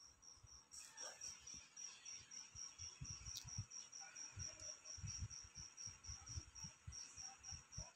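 Faint cricket chirping in a steady, high-pitched pulse of about four chirps a second, with soft low bumps from the mug being handled.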